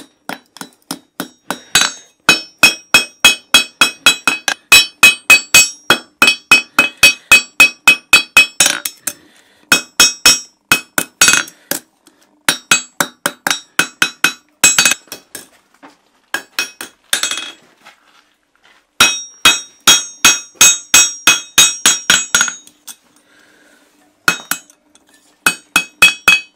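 Blacksmith's hand hammer striking hot iron on an anvil while forging a horseshoe: quick runs of sharp ringing blows, about three to four a second, broken by a few short pauses.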